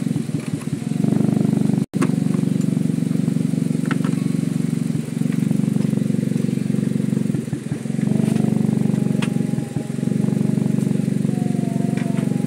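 Car petrol engine idling steadily, heard close up with the bonnet open; the engine has just been repaired.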